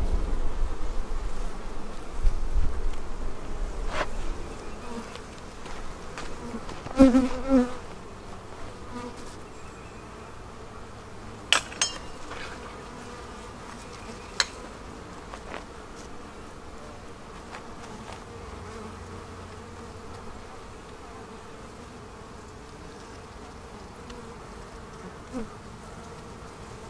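Honeybees humming steadily over the open hive's frames, a dense buzzing that is louder in the first several seconds. A few sharp clicks break in, twice in the first half and twice more in the middle.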